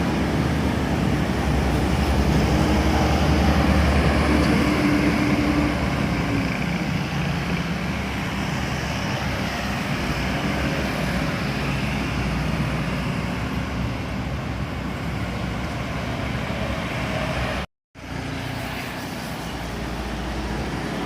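Large buses driving past on a road, their diesel engines running with tyre and road noise; loudest in the first six seconds, then fading away. The sound cuts out for a moment near the end, then quieter traffic noise returns.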